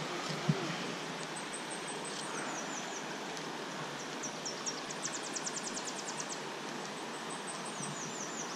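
A clear, shallow stream flowing over a rocky bed makes a steady rush of water. There is a soft knock about half a second in, and faint high chirps and a rapid trill come through in the middle.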